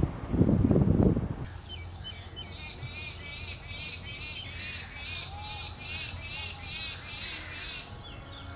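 Insects chirping in high, rapidly pulsing trills, repeating over and over, with birds calling. A brief loud, low sound fills the first second and a half.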